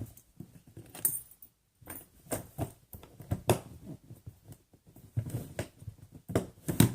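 Fishing tackle and its plastic packaging being handled: irregular clicks, knocks and rustles, sharpest near the end.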